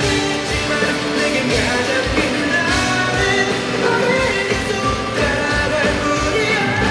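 Live rock band playing, with male singing over electric guitars and drums.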